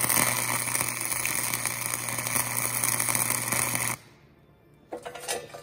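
Electric welding arc crackling steadily while a weld bead is laid on steel, cutting off abruptly about four seconds in. A few short metallic knocks follow near the end.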